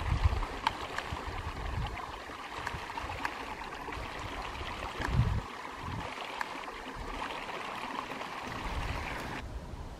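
Steady outdoor rushing hiss with irregular gusts of wind buffeting the microphone. The hiss drops away sharply near the end.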